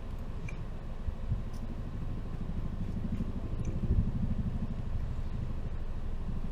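Low, steady road and engine rumble of a moving car heard from inside the cabin, swelling a little about four seconds in, with a few faint clicks.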